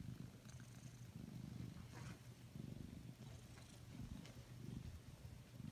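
Domestic cat purring faintly, the purr swelling and fading about once a second with its breathing.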